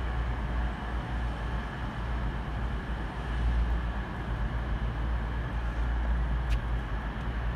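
A Class 222 Meridian diesel multiple unit running slowly into the station, its underfloor diesel engines giving a steady low rumble. A faint high click comes about six and a half seconds in.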